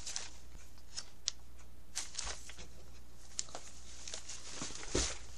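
Paper pages being handled and flipped through, with scattered short crinkles and taps, a slightly louder rustle near the end, over a low steady hum.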